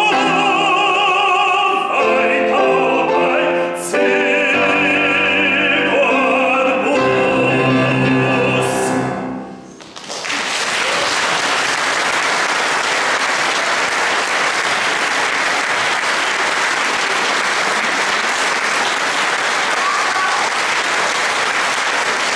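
A male classical singer with grand piano accompaniment sings the closing phrase of an art song, ending on a long held note with vibrato. About ten seconds in the music stops and an audience breaks into steady applause that runs on.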